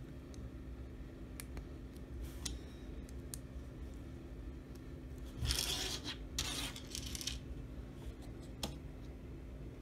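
Small plastic LEGO pieces being handled and pressed together: scattered light clicks, with a few short scraping, rustling bursts a little past halfway. A faint steady hum runs underneath.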